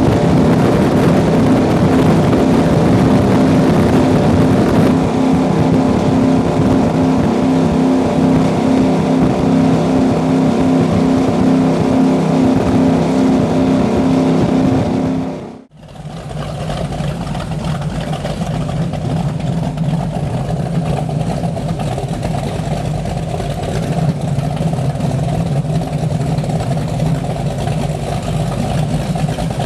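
Wellcraft Scarab 38KV speedboat engines running steadily under way. Just past halfway the sound drops out briefly, then comes back with a lower engine note.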